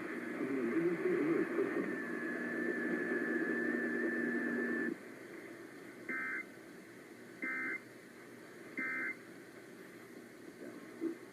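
Emergency Alert System end-of-message code: three short, identical data bursts about a second and a half apart, the 'NNNN' signal that closes the test. Before them, muffled radio audio with static and a steady high whistle cuts off abruptly about five seconds in.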